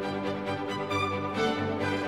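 Instrumental background music with sustained, held notes.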